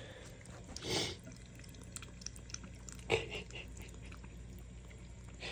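Cold water running from a sink tap in a thin stream, with small ticks and splashes from a cat drinking at it, and a louder splash about a second in.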